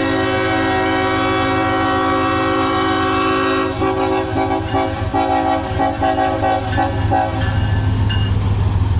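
Diesel freight locomotive horn sounding one long blast, then several shorter blasts ending about seven seconds in, over the steady low rumble of the passing train.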